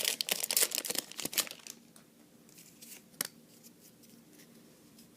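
Trading card booster pack being opened: a dense run of crinkling, tearing wrapper clicks for the first second and a half, then faint handling with one more sharp click about three seconds in.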